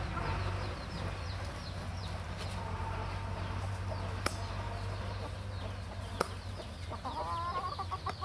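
Chickens clucking and calling, with a couple of sharp knocks from a stick pounding coconut meat in a coconut half.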